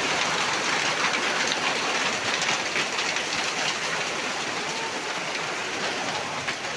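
Hailstones pelting down in a dense, steady clatter of many small hits, easing off slightly toward the end.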